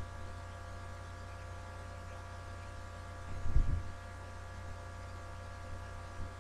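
Steady electrical hum with several faint steady tones over it, broken by a short low thump about three and a half seconds in.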